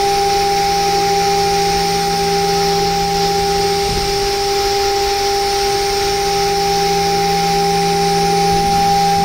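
CNC spindle running at 24,000 rpm with a 4 mm two-flute ball end mill taking a light parallel finishing pass across an aluminium block: a steady high whine over the hiss of the cut.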